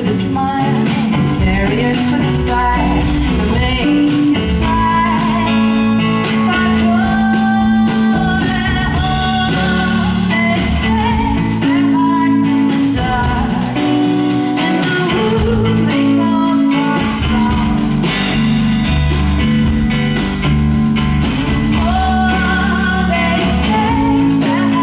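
A woman singing into a microphone with a live band: electric guitar and drum kit under her voice, the song running continuously.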